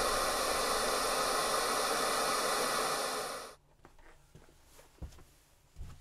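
A radio giving out steady static hiss, having lost its signal inside a radio-frequency shielded chamber. The hiss cuts off abruptly about three and a half seconds in, leaving faint room tone with a few light knocks.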